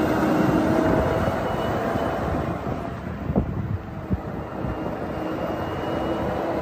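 Diesel engine of a truck-mounted boom crane running as the heavy truck drives over gravel: a steady, noisy drone. A few short knocks come about three and four seconds in.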